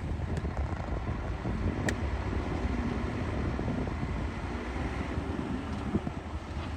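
Heavy construction machinery's diesel engine running steadily with a deep low-pitched sound, and a single sharp metallic click about two seconds in.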